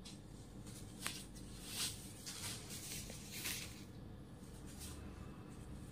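Soft rustling and swishing of saree cloth being unfolded and handled, a few separate brushes with a sharp click about a second in.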